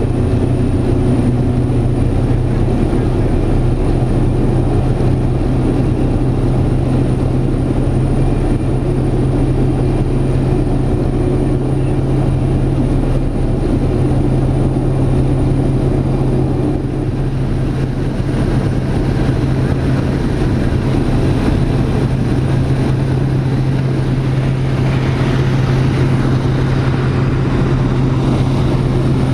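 Pilatus PC-6 Porter's turboprop engine and propeller droning steadily in flight, heard inside the cockpit as a constant low hum under a dense rush of noise.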